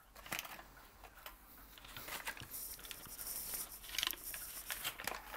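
Irregular light taps, scrapes and rustling of hands and a knife working a block of cold, hard butter.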